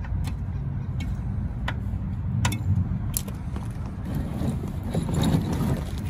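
A few sharp metallic clicks and taps as the drain plug is tightened onto the skid steer's oil drain spout, then handling noise around the plastic oil drain pan near the end, over a steady low rumble.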